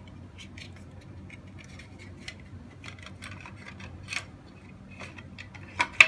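Small clicks and taps of wires and a plastic radio box being handled and fitted into an RC tracked vehicle's chassis. Irregular light clicks, with a sharper click just before the end.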